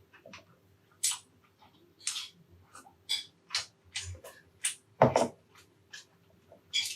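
Close-miked mouth sounds of eating beef caldereta: a run of short, wet chewing and lip-smacking clicks, a few a second, with one heavier, deeper sound about five seconds in. A faint steady hum sits underneath.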